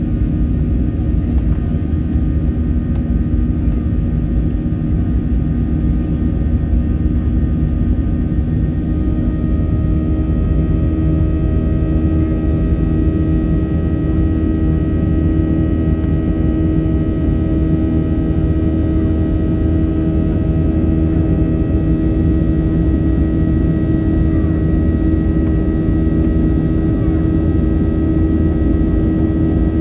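Boeing 737-800's two CFM56-7B26 turbofan engines heard from inside the cabin: a steady rumble with a hum of several held tones. About a third of the way in, the engine note changes and higher tones join, then hold steady.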